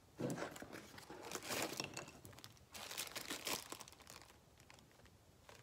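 Packaging crinkling and rustling in bursts as hands rummage through a mailed box of tobacco samples, dying down about four seconds in.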